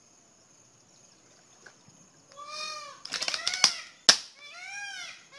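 Turtle shell cracking in an alligator's jaws: a burst of crunching clicks about three seconds in, then one sharp loud crack a second later. Repeated high calls that rise and fall in pitch, from an unseen animal or person, begin about halfway through.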